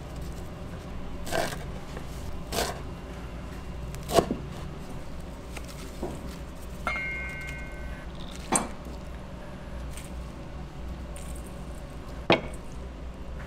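Kitchen knife chopping the tough stems off perilla leaves on a cutting board: five sharp knocks of the blade on the board, spaced irregularly. A brief high tone sounds about seven seconds in.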